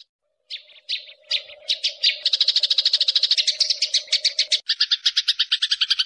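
House sparrows chirping in a fast, continuous chatter of many short chirps, resuming after a half-second gap at the start.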